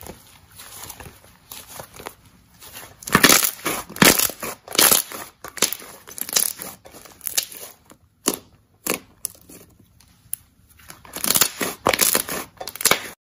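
Thick pink slime squeezed and kneaded by hand, giving irregular bursts of squishing with short sharp pops. It is loudest about three to five seconds in and again near the end.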